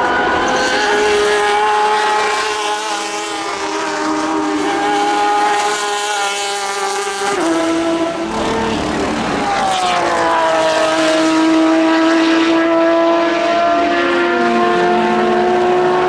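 Racing car engines at high revs, chiefly a Porsche 991 RSR's naturally aspirated flat-six: a high, steady engine note that changes abruptly about halfway through, then drops in pitch and settles again. A second car's engine note falls in pitch near the end.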